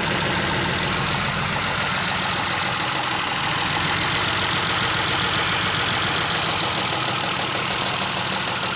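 Chrysler LHS 3.5 V6 engine idling steadily with a diesel-like clatter: the engine is knocking.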